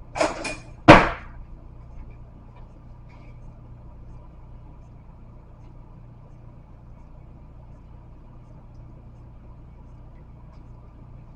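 A short scraping clatter and then one sharp knock about a second in, the sort of thing a utensil or dish makes set down in a kitchen; after it only a low, steady background hum.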